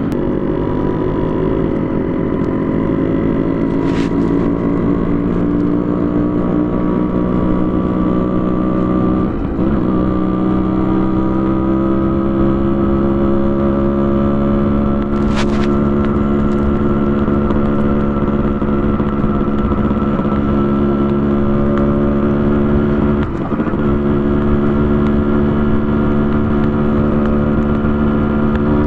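Yamaha RX100's two-stroke single-cylinder engine, fitted with a custom expansion-chamber exhaust, pulling on the move. Its pitch climbs steadily, with two short breaks about 9 and 23 seconds in. Two sharp ticks sound about 4 and 15 seconds in.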